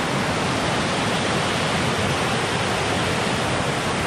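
A creek in flood, muddy water rushing through rapids over rocks and fallen trees: a steady, unbroken rush of whitewater.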